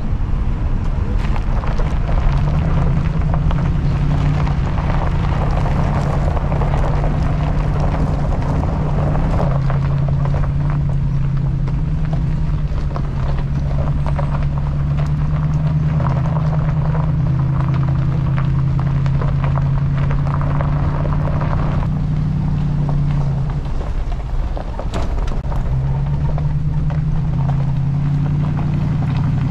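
Pickup truck driving on a rough mountain road: a steady low engine drone that shifts in pitch every few seconds with speed, over tyre and road noise.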